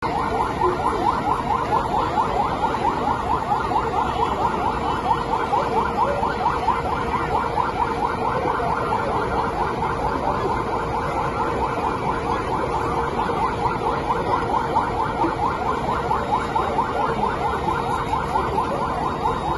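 Police vehicle siren in a fast yelp, its pitch sweeping up several times a second without a break, over the noise of a large crowd.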